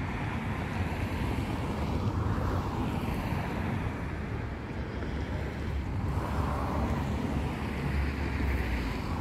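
Wind buffeting the microphone: an uneven low rumble that swells and eases, with no distinct events.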